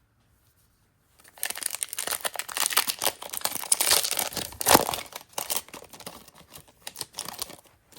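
Foil booster-pack wrapper being torn open and crinkled by hand. The crackling starts about a second in, is loudest a little past the middle and fades near the end.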